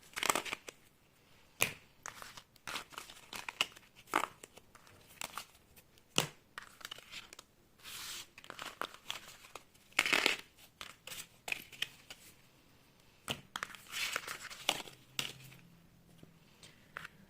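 Tarot cards being handled on a table: irregular papery swishes and sharp snaps as the cards are slid, gathered and shuffled.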